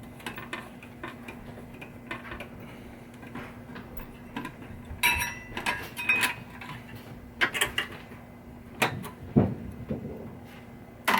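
Scattered clicks, clinks and knocks of tools and small metal parts being handled on a workbench, a few with a short metallic ring, over a steady low hum.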